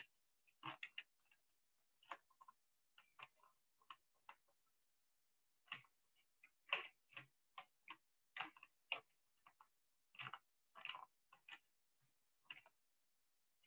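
A run of irregular light clicks and taps, some coming singly and some in quick clusters of two or three.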